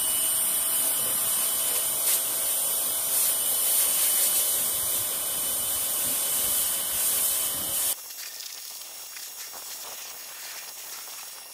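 Pressure washer jet spraying water onto a lawn tractor: a loud, steady hiss with a high whine, which cuts off suddenly about eight seconds in and leaves only a faint hiss.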